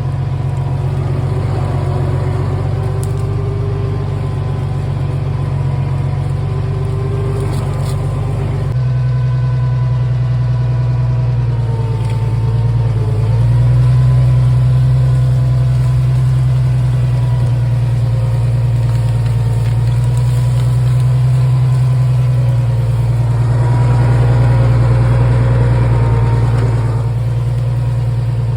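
Farmall 460 tractor engine running under load while pulling a fallen oak tree out on a chain. Its note changes abruptly about a third of the way in and swells twice later on.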